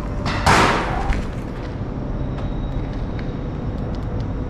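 A sudden loud bang about half a second in, fading within half a second, then a smaller knock, over a steady low rumble.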